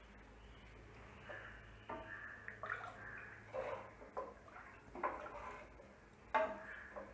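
Spatula stirring rice, moong dal and water in a pressure cooker pot: faint, irregular sloshes and splashes of water, starting about a second in, the loudest a little after six seconds in.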